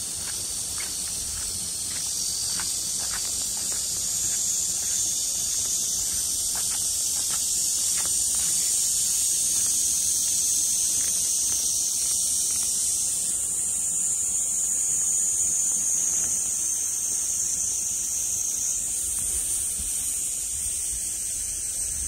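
A loud, steady, high-pitched insect chorus, shifting in tone partway through. Faint footsteps on mown grass sound through the first several seconds.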